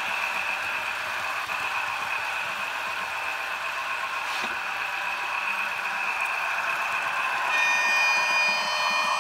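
Märklin HO-scale Class 217 diesel locomotive pair running along model track: a steady high motor whine over the rolling clatter of wheels on rails. Near the end a brief shrill cluster of high tones joins in.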